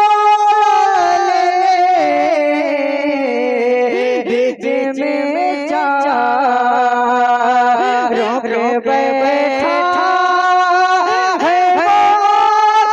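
Solo male voice singing a naat into a microphone. He holds long, wavering notes and sings bending melodic runs on a sustained vowel, with no clear words.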